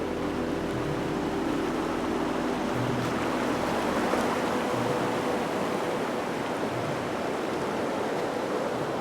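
Steady rush of river water, with a Jeep's engine running faintly underneath that fades out about halfway through.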